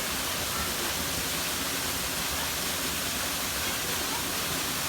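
Steady rushing of a stream waterfall, an even wash of falling water.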